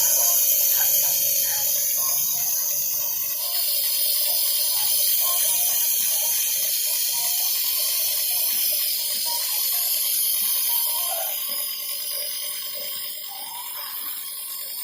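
Compressor nebulizer running, turning liquid medicine into an inhaled mist: a steady hum under a strong high hiss of air. It cuts off suddenly at the end.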